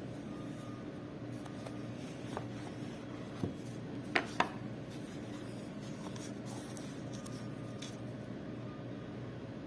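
Steady low hum with light rubbing and scratching, and a few small clicks, two sharper ones close together about four seconds in.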